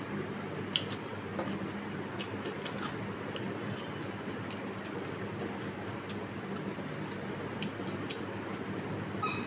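Close-up eating sounds of a person eating rice and mutton curry by hand: irregular soft clicks and smacks, roughly one or two a second, over a steady low hum.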